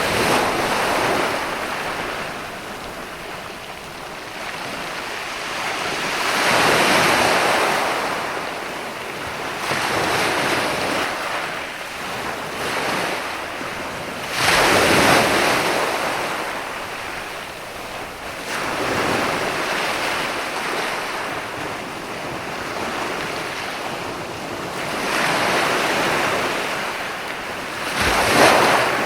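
Ocean waves washing onto a shore, the surf swelling and ebbing every several seconds, with a sharper, louder surge near the end. Some wind on the microphone.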